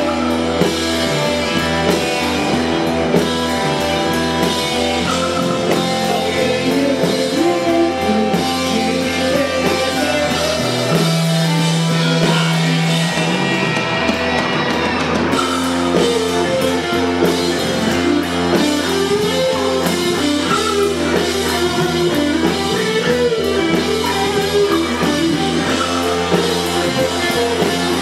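Rock music from a band: electric guitars and a drum kit, with a singer's voice over them, playing steadily.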